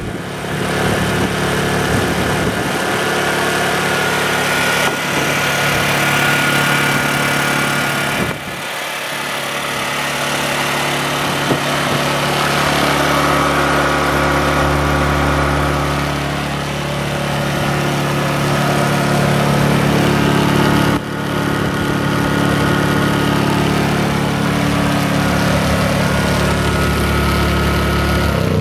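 Honda EU2000i inverter generator's small single-cylinder four-stroke engine running steadily.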